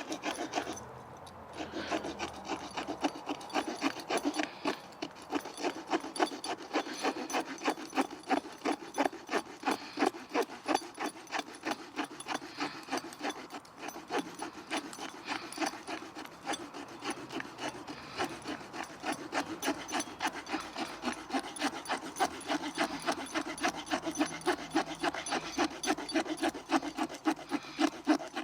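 Small folding saw blade of a Victorinox Ranger Swiss Army knife cutting through a piece of wood, in steady back-and-forth strokes of about two a second that start about two seconds in.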